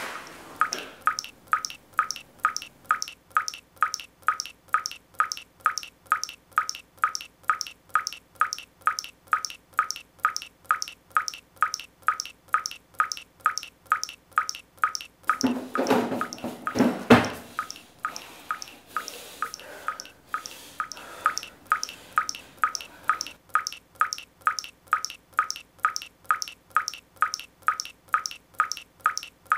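Water dripping from a kitchen faucet into a stainless steel sink: a steady, evenly spaced drip, a little over two drops a second. About halfway through, a louder, lower sound lasting about two seconds briefly covers the dripping.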